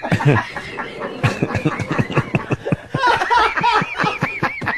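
Men laughing hard together, breaking into a quick run of high-pitched hoots about three seconds in.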